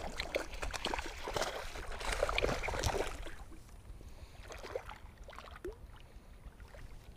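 Hooked bass thrashing and splashing at the water's surface, the loudest splashing in the first three seconds. After that it goes quieter, with scattered small splashes and knocks as the fish is worked in beside the kayak.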